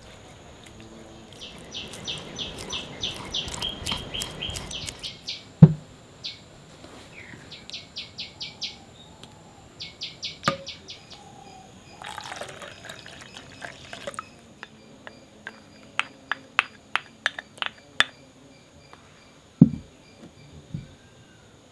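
A spoon scraping and mashing steamed pumpkin in a bowl, with three sharp knocks that are the loudest sounds. Behind it, birds chirp in quick runs of repeated high notes over a steady high whine.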